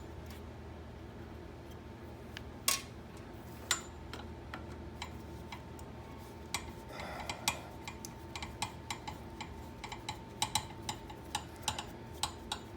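Scattered sharp metallic clicks and ticks of hand tools working on the screws of a bracket in a car's engine bay. They come sparsely at first and then in a quicker, irregular run through the second half, over a faint steady hum.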